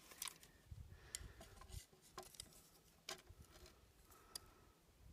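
Near silence with a few faint, scattered clicks and light handling noise from a tape measure being set against the target's face.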